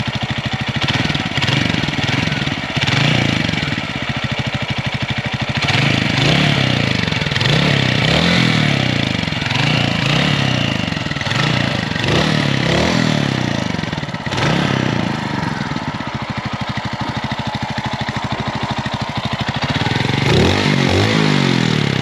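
Mutt Akita 250's single-cylinder air-cooled 250cc engine idling while the throttle is blipped again and again, the revs rising and falling about ten times. There is a steadier idle for a few seconds, then one last rev near the end.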